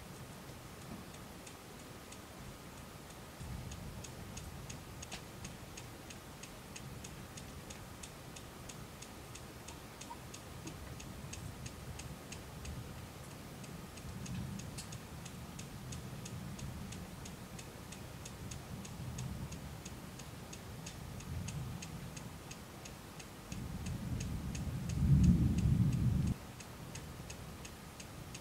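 Distant thunder rumbling low, swelling to its loudest near the end and then cutting off suddenly. Over it, a faint, even ticking about three times a second.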